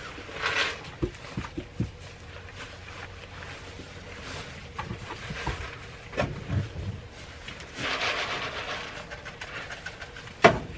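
Hay and straw bedding rustling as goats and a person move through it, with a few scattered light knocks and one sharp knock near the end.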